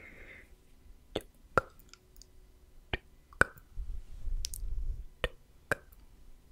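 Slow ASMR mouth sounds close to the microphone: about eight separate wet tongue-and-lip clicks and pops, spaced irregularly. A low muffled rumble runs for about a second in the middle.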